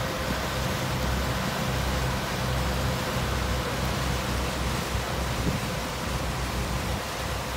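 Passenger ferry under way: a steady low engine drone under the rush of its churning wake.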